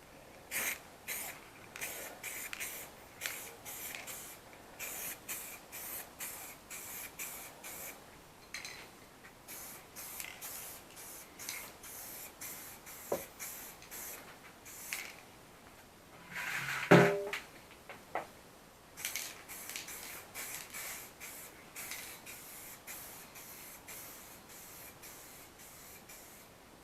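Aerosol spray-paint can spraying a coat in many short hissing bursts, a light coat being blended over a patchy repair. About two-thirds of the way through there is one louder knock.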